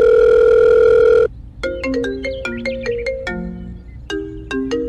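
Telephone ringing sound effect: a loud, steady electronic tone that cuts off suddenly after about a second, followed by a quick marimba-like ringtone tune that starts over near the end.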